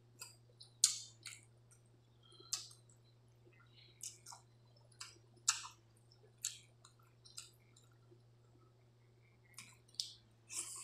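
Irregular wet squelches and clicks of a hand squeezing and mixing water-soaked rice (pani bhat) in a steel plate, along with mouth sounds of eating it by hand.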